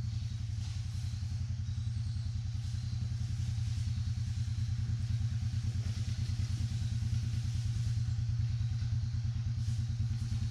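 Yamaha TW200's single-cylinder four-stroke engine running steadily at low revs under load as the bike pulls up a muddy hill, a low, evenly pulsing beat that grows slightly louder toward the end.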